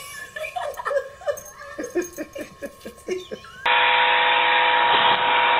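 Loud steady hiss of a spray wand jetting water, with a steady hum under it, starting suddenly about three and a half seconds in.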